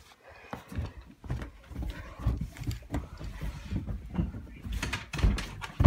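Handling noise: a phone's microphone rubbing and bumping against a golden cocker spaniel's long fur, giving irregular rustling with scattered knocks that grow louder and busier in the second half.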